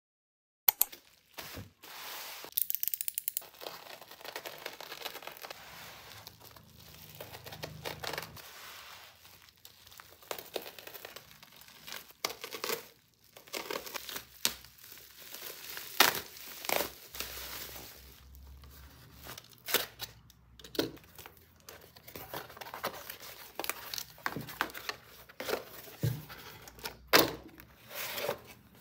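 Plastic parcel wrapping crinkling and tearing as it is pulled open by hand, then cardboard and paper being handled, with irregular sharp taps and clicks throughout.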